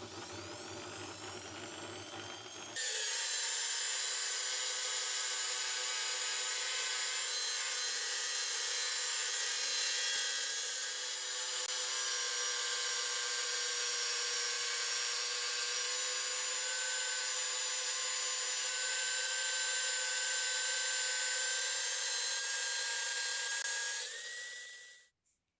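Electric drill mounted in a homemade drill-press stand, spinning a sandpaper drum sander while a wooden block is fed against it. The motor speeds up with a rising whine over the first few seconds, then runs steadily with the rasp of sanding, and stops about a second before the end.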